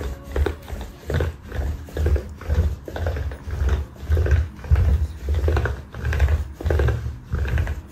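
Miniature dachshund licking its front paw, close to the microphone: rhythmic wet licks at about two a second.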